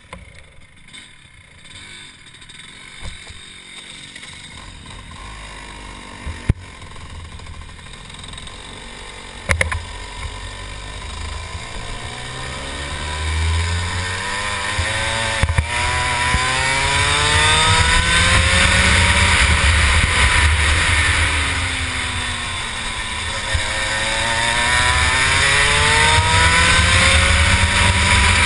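Rotax 125 single-cylinder two-stroke kart engine heard onboard as the kart pulls away and accelerates onto the track. The revs and loudness climb over the first twenty seconds, dip briefly for a corner, then climb again near the end, with wind noise growing with speed. The owner says the engine is running too lean.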